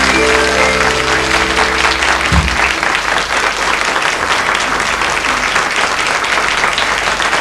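Studio audience applauding over a live band's final held chord. The chord ends with a low thump a little over two seconds in, and then the applause goes on alone.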